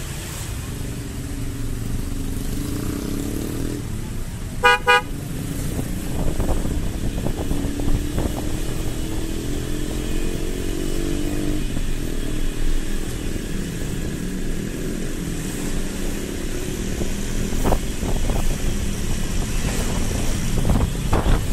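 Motorcycle engine running on the move, its pitch rising and falling with the throttle, over steady wind and road noise. About five seconds in, a vehicle horn gives two short toots.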